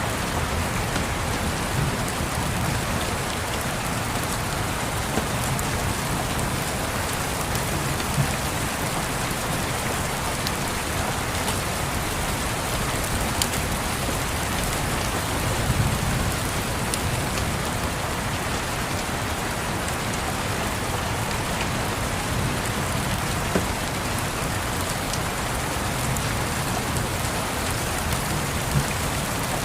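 Steady rain pattering, with a few faint crackles from a log fire and a soft low rumble of distant thunder about halfway through.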